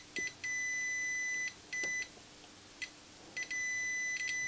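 Multimeter continuity beeper sounding as the test probes make and break contact on the CD player's motor driver IC pins: one high steady tone that comes and goes in several short and longer beeps, then holds steady from about three and a half seconds in. The beep shows an unbroken connection between the motor and its driver IC.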